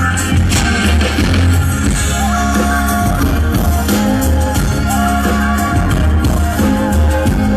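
Amplified live band playing an alborada, Ecuadorian Andean dance music, at a sound check: guitar over a steady bass with percussion, loud and continuous.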